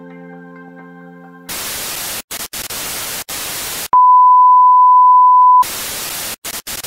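A held music chord fades out, then TV static hisses and cuts in and out. A loud, steady colour-bar test-tone beep follows for about a second and a half, and the static returns with brief dropouts.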